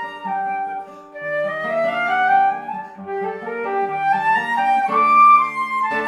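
Flute and guitar duo playing: the flute carries the melody and sweeps upward in a rising run a little over a second in, over plucked guitar notes below.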